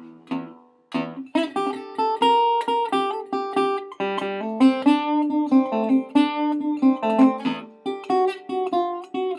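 Acoustic guitar playing a blues intro: two strummed chords, a brief pause, then a steady fingerpicked pattern of treble notes over a repeating bass line.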